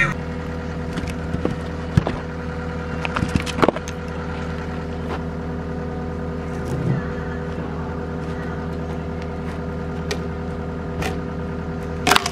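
An engine idling steadily at constant speed, with a few sharp clicks and knocks, one about two seconds in, a couple around three and a half seconds, and a louder one near the end.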